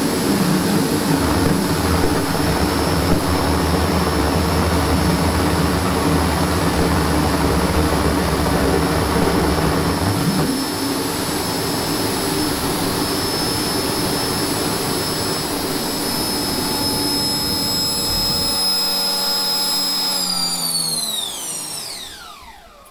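Homemade propane-fired jet engine with an electric-motor-driven 3D-printed centrifugal compressor running at full speed: a steady high-pitched compressor whine over a combustion rumble. The low rumble stops about 18 seconds in, and near the end the whine glides down in pitch and fades as the compressor spools down.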